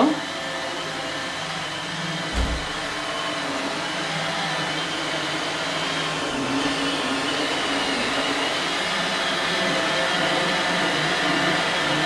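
iRobot Roomba 880 robot vacuum running on carpet: a steady whir of its motor and brushes with a faint whine, growing a little louder near the end as it comes closer. A brief low thump about two and a half seconds in.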